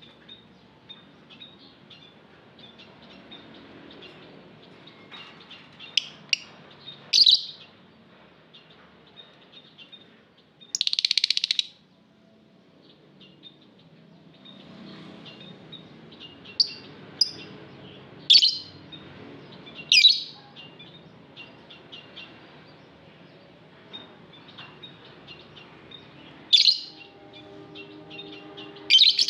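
Lovebirds chattering: a soft, continuous twitter broken every few seconds by loud, shrill chirps, with one longer, harsh, buzzy screech about eleven seconds in.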